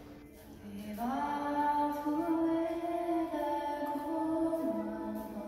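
Slow ambient music with a voice-like melody of long held notes that change pitch slowly, coming in about a second in: the soundtrack of the tunnel's light-and-music show.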